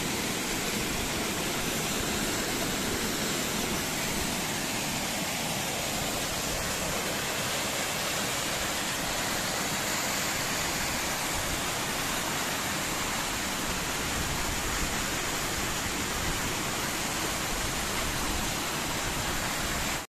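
Steady rush of falling water: a waterfall pouring onto rocks and a stream splashing over boulders below it, at an even level throughout.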